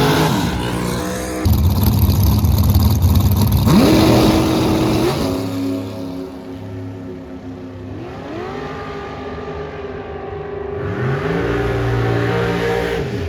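Drag racing car engines revving, the pitch sweeping up and holding several times, with a sudden loud burst about a second and a half in.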